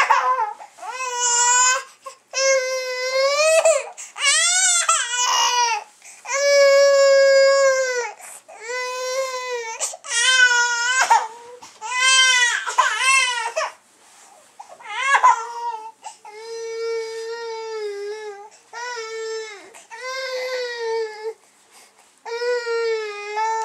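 Baby crying in a string of high wails, each about a second long with short catches of breath between. The wails are loud through the first half and softer from about two-thirds of the way in.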